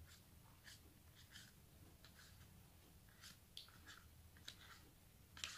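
Near silence with faint, scattered soft scrapes and taps of a plastic spoon scooping yogurt out of a plastic tub.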